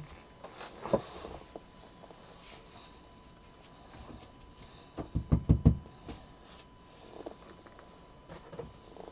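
Baseball trading cards and packs being handled at a table: light rustling and small ticks, with a quick run of about six taps about five seconds in.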